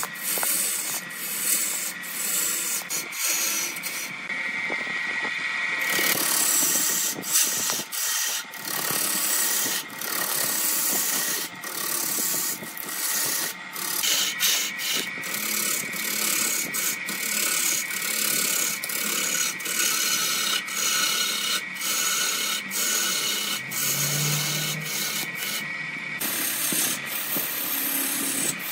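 A long-handled gouge cutting into a large log spinning on a wood lathe: a continuous rough, scraping hiss as shavings tear off. The noise dips briefly and irregularly as the cut comes and goes.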